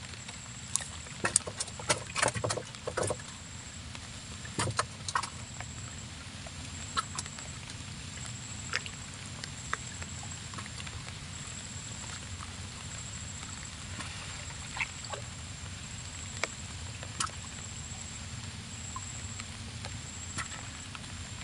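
Sharp clicks and light knocks from a handline being cast and handled in a wooden boat, crowded together in the first few seconds and then only now and then. Under them runs a steady low rumble, with a thin steady high tone above.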